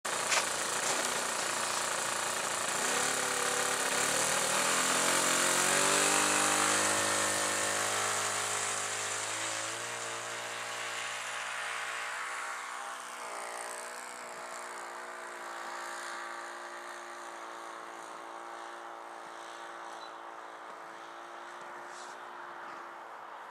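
Radio-controlled model plane's engine opening up and rising in pitch for takeoff, loudest a few seconds in. About halfway through its pitch slides down as it flies away, and it carries on as a fainter, steady drone.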